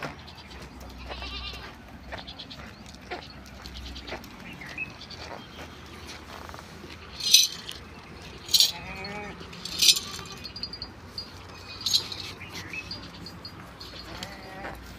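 Goats bleating now and then in a pen, wavering calls, with four sharp knocks in the middle that are the loudest sounds.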